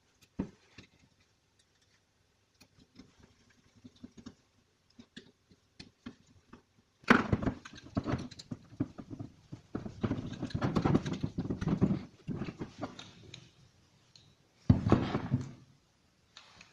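Small clicks and taps of a screwdriver on the screws inside a Honda distributor. About seven seconds in, several seconds of rustling and scraping as gloved hands handle the distributor and its wiring, with a shorter burst of the same near the end.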